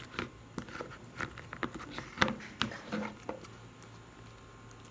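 Slime being squished and pulled by hand: a run of irregular wet clicks and pops, the loudest a little past two seconds in, thinning out after about three and a half seconds.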